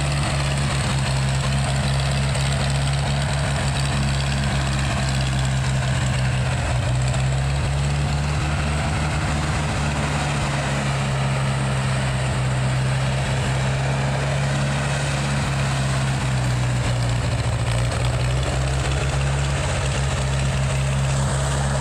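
Ford 134 cid four-cylinder industrial engine of a Gehl Hydracat 4400 skid steer running steadily at idle on freshly fitted spark plugs and wires.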